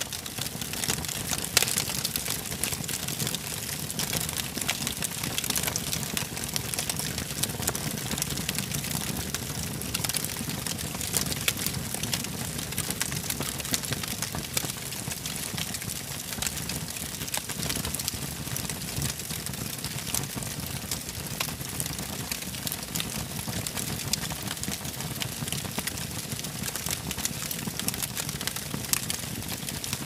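Wood fire burning in a fireplace: a steady hiss with many small crackles and pops throughout, and a sharper pop about a second and a half in.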